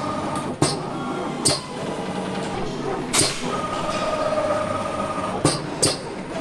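Automated engine assembly-line machinery running: a steady mechanical hum with held whining tones, broken by about five short, sharp clicks with a hiss.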